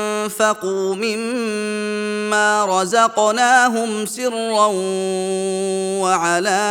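A man's voice reciting the Qur'an in measured murattal style, holding long elongated melodic notes with small turns in pitch.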